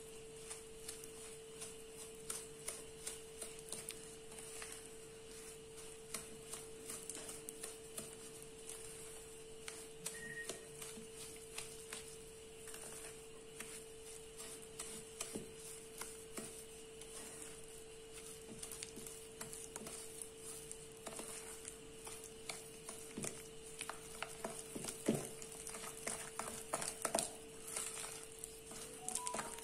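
Wooden spoon stirring and scraping butter and caster sugar in a glass bowl, with frequent small clicks and taps of the spoon against the glass as the mixture is creamed. A faint steady hum runs underneath.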